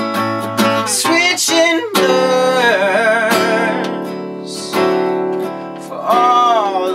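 A man singing a slow blues to his own acoustic guitar, holding long wavering notes over strummed chords.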